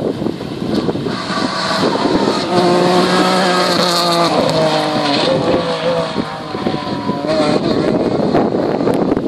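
Rally car engine driving past at speed, heard for several seconds over heavy wind noise on the microphone. Its note holds steady, then drops in a few steps before fading.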